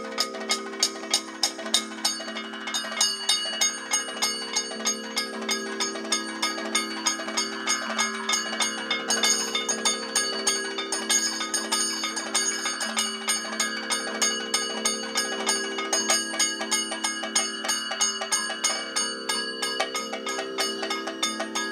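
Kathakali percussion accompaniment: chenda and maddalam drums with hand cymbals play a fast, even beat of about four to five strokes a second over a steady drone, with no singing.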